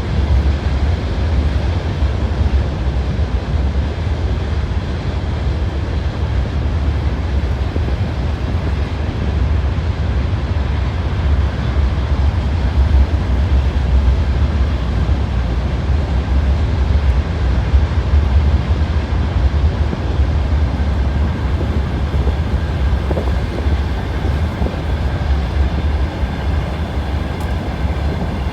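A train running on rails: a steady, loud, deep rumble of wheels.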